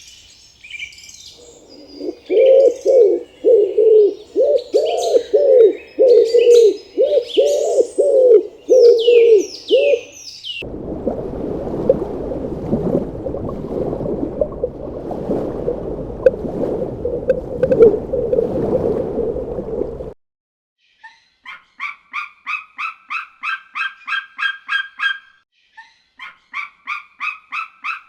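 A run of animal calls. First, birds chirping over a series of loud, low repeated calls, about one and a half a second. Then about ten seconds of a steady, noisy sound. Last, two bursts of rapid repeated calls, about four a second.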